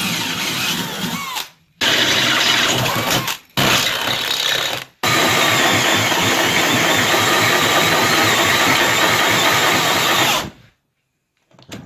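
Electric drill boring into metal, in four runs that break off abruptly, the last lasting about five seconds.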